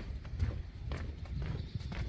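Footsteps on a wooden deck boardwalk, steady walking at about two steps a second, each step a dull hollow thud with the odd sharp click.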